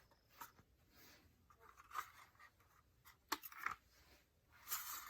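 Faint scattered clicks and scratchy scrapes of a fire alarm's small parts being handled and worked apart by hand. There is a sharp click a little past the middle and a longer scrape near the end.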